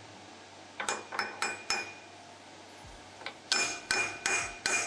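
Hammer taps on a car brake rotor mounted in a metal lathe, in two quick runs of about four taps each. Each tap leaves a short metallic ring.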